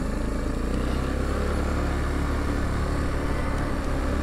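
Yamaha Kodiak 450 ATV's single-cylinder four-stroke engine running steadily under way in snow, pitch holding fairly even.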